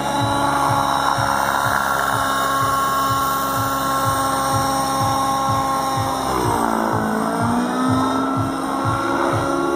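Raptor G4 nitro RC helicopter's two-stroke glow engine and rotors whining steadily in aerobatic flight. The pitch dips briefly about six seconds in and rises back. A low throb repeats about twice a second underneath.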